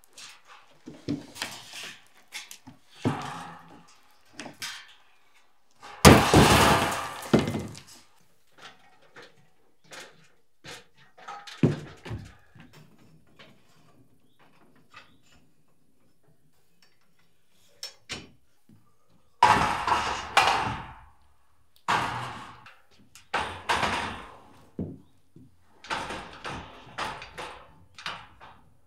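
Steel scaffolding being put together: frames and perforated steel deck planks knocked and slid into place, giving irregular metal clanks, knocks and scrapes. The loudest clatter comes about six seconds in, and again from about twenty seconds on.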